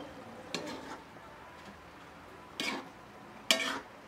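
A metal cooking spoon knocking against a metal wok of simmering adobo as stirring begins: three sharp clanks, the loudest near the end.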